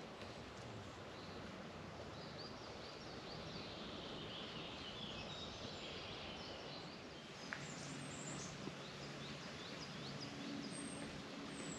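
Small birds singing, many short high chirps over faint outdoor background noise. A single click about seven and a half seconds in. A steady low hum comes in just after it.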